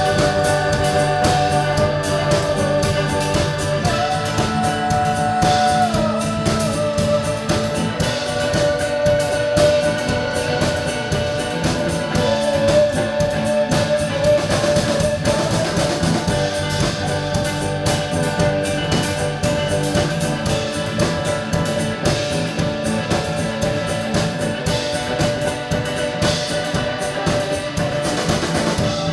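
Live rock band playing an instrumental passage: electric guitar over a drum kit, with a lead line bending in pitch above a steady beat.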